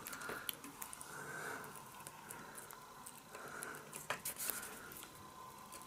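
Faint handling noise: scattered small clicks and rustles as stiff ceiling-fan wires and a plastic wire nut are fingered and twisted.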